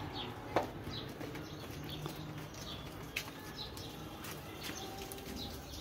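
Small birds chirping in trees: short high chirps repeating every second or so. A sharp click sounds about half a second in and another about three seconds in.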